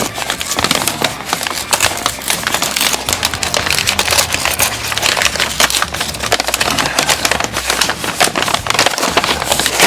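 Thick wrapping paper and packing tape crackling, crinkling and tearing as a present is unwrapped by hand, a dense stream of sharp crackles close to the microphone.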